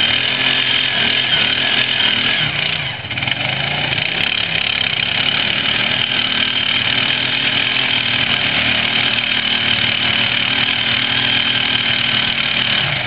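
ATV engines running steadily, with a brief dip about three seconds in.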